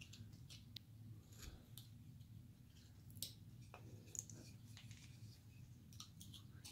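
Faint, irregular clicks and scrapes of a carving knife paring small cuts in basswood, over a low room hum.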